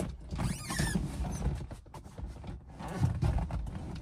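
Leather rear seat of a first-generation Honda CR-V being shifted by hand as its latch is lifted and the seatback pushed down flat: upholstery scraping and creaking with clothing rustle, and a brief squeak about half a second in.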